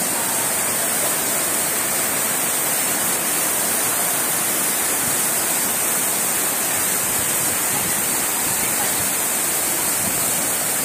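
Steady, unbroken rush of flowing water, even in level, with no distinct splashes or breaks.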